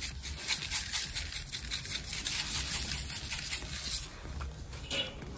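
Dry BBQ rub shaken from a shaker bottle over a turkey breast on a metal sheet pan: a run of quick, gritty rattling taps for about four seconds, then quieter as gloved hands pat the rub into the meat.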